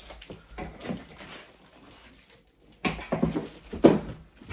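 Cardboard box holding a 70 lb heavy bag being handled and lifted upright: rustling and scraping cardboard, busiest in the second half, with a sharp knock near the end.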